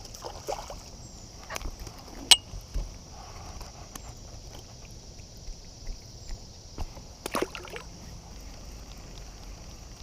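Scattered light clicks and knocks of fishing gear being handled aboard a kayak, one sharp click about two seconds in and a quick cluster near the end, over a steady high hiss.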